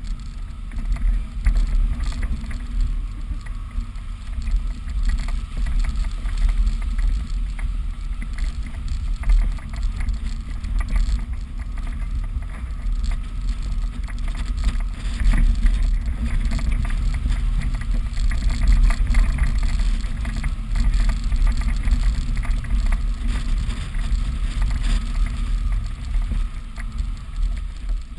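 Suzuki Vitara 4x4 driving along a rough, stony off-road track: a steady, uneven low rumble of engine and tyres, with light rattles from the ride over the stones.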